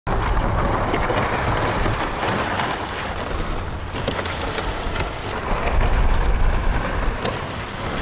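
A plastic sled scraping over rough asphalt as it is dragged by a rope: a steady gritty rasp with small ticks of grit, over a low rumble.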